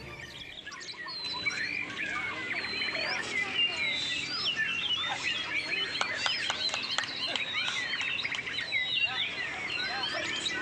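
Many white-rumped shamas singing at once in a dense, overlapping mix of whistles, chirps and trills.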